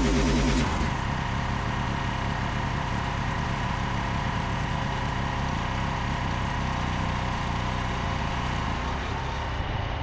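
Frontier OS27 portable bandsaw sawmill's petrol engine running steadily.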